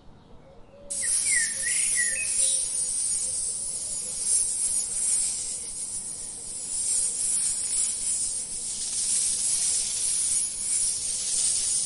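Rattlesnake rattling its tail: a steady, high-pitched dry buzz that starts suddenly about a second in and keeps going, the warning signal of an alarmed rattlesnake. A few bird chirps sound briefly in the first seconds.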